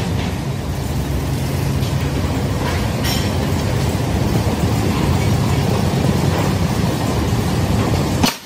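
Steady low hum and rumble of factory machinery running in a leaf spring workshop, with a couple of sharp metal clinks, one about three seconds in and one near the end.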